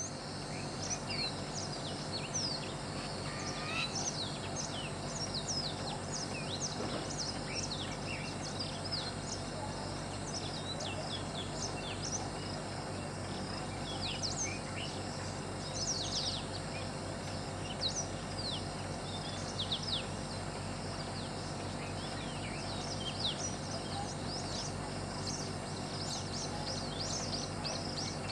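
Small birds chirping with many short, high, quick calls, scattered throughout, over a steady low hum.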